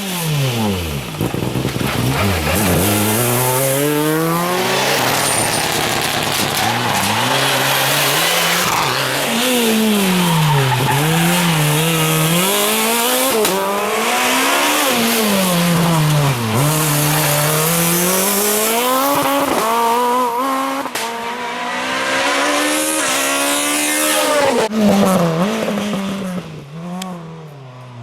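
Rally cars driven flat out on a special stage. The engines rev high and drop again and again through gear changes and braking for corners.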